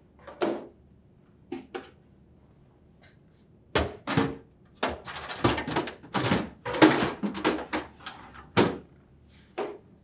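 Clear plastic crisper drawer being handled and slid into its slot in a refrigerator, knocking and clattering against the runners: a couple of single knocks, then a busy run of plastic knocks through the second half.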